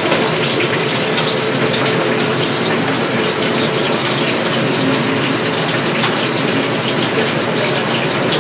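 Steady rushing noise from the stove: the range hood fan running and shrimp sizzling in a hot wok, with light scrapes of a spatula on the pan as the shrimp are tipped out onto a plate.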